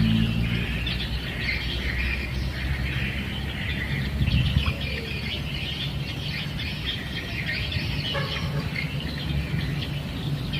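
Birds chirping and calling continuously in a dense chorus, over a low steady rumble.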